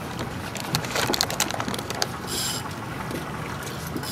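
Fishing reel clicking rapidly for about a second and a half, with a short high hiss a little after that.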